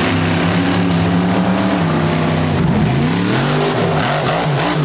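A car engine running and revving, starting abruptly at full level; its pitch dips about halfway through and then climbs again near the end.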